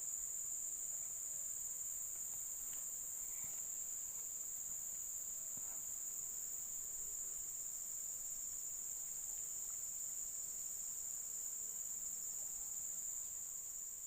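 Insects, crickets or the like, chirring in a steady, high-pitched chorus that begins to fade near the end.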